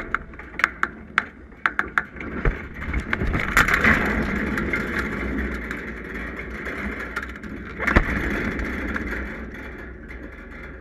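Star-class keelboat under sail: water rushing and splashing along the hull and wind buffeting the microphone. A run of sharp clicks and knocks comes in the first two seconds, and a single loud knock about eight seconds in.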